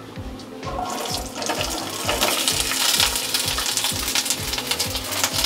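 Slit ivy gourds (tindora) tipped from a bowl into hot oil in a nonstick pan and frying, a sizzle that builds about a second in and is loudest around the middle.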